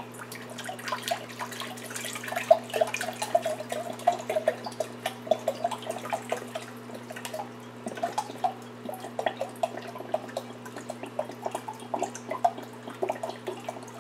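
Hydrogen peroxide glugging out of an upturned plastic bottle into a glass measuring pitcher: a quick, irregular gurgle and splash of liquid that starts about a second in, over a steady low hum.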